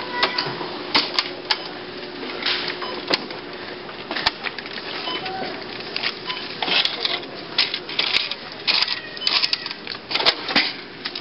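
Store checkout lane: irregular clicks and clattering at the cash register, thickest in the second half, with a couple of short beeps.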